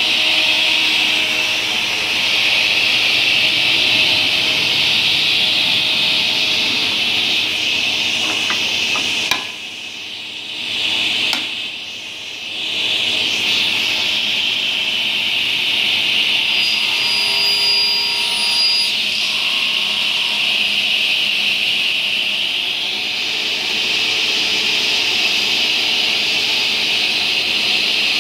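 Holz-Her 1243 sliding table saw running, its 9 hp main blade and the 1 hp scoring blade at about 8,000 RPM both spinning, with a board being crosscut on the sliding table. A steady, loud, high whir that drops off suddenly about nine seconds in and returns a few seconds later.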